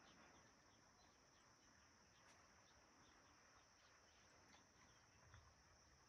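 Near silence outdoors, with a faint steady high-pitched insect drone and faint scattered short chirps.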